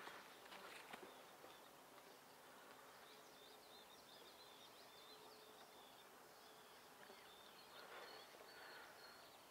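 Near silence: faint outdoor ambience, with a run of faint high chirps about three to five seconds in.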